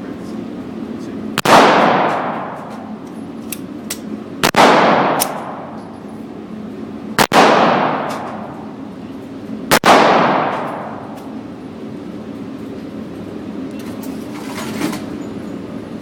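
Four shots from a 9mm Glock 17 pistol, fired one at a time about three seconds apart, each ending in a long echo, with a few fainter sharp cracks in between.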